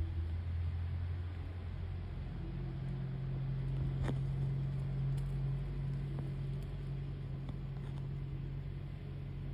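Steady low engine hum, its pitch stepping up about two seconds in and then holding, with a single sharp click about four seconds in.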